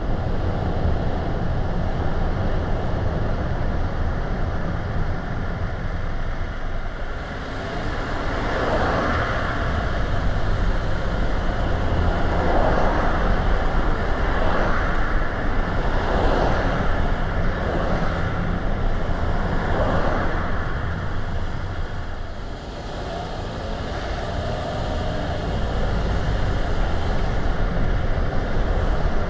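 Car driving on a road: steady tyre and road noise with a low rumble, swelling several times in the middle of the stretch.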